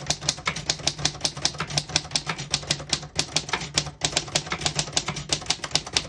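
1934 Corona Four portable typewriter being typed in a quick, even run, about six key strikes a second, with the typebars clacking cleanly and none of the keys sticking.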